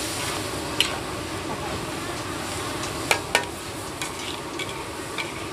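Onion flower stalks and pork liver sizzling in a large metal wok while a metal spatula stirs and tosses them, with sharp clanks of the spatula against the pan about a second in and twice a little after three seconds in.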